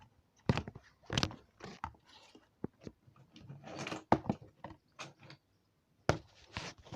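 Irregular clicks, knocks and short scrapes of hard plastic as Beyblade tops and parts are handled, about a dozen separate sharp hits with a couple of brief scraping rustles between them.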